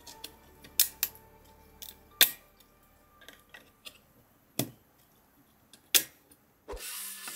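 Sharp clicks and snaps of a DDR3 laptop memory module being unlatched and handled in its slot in a Mac mini, about six separate clicks spread over several seconds. Near the end a low thump is followed by a loud steady hiss.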